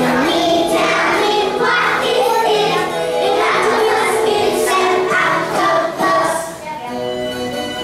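A class of young children singing along to a recorded children's song, with the backing music playing underneath.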